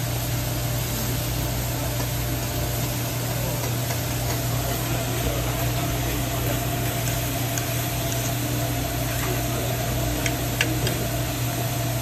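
Vegetables and sliced meat sizzling steadily on a hibachi griddle, an even hiss over a low, constant hum, with a few light clicks near the end.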